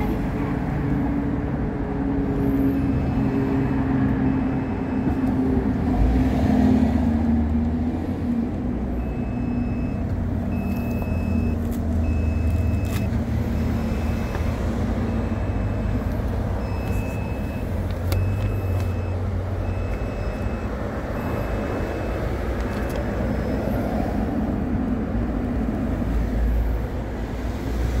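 Motor vehicle running with a steady low rumble, its engine note sliding down over the first several seconds. A high electronic beep repeats about once a second in several runs.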